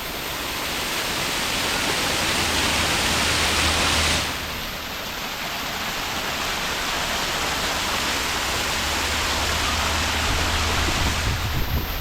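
Steady rushing of the Radau Waterfall's falling water, which drops suddenly to a lower level about four seconds in.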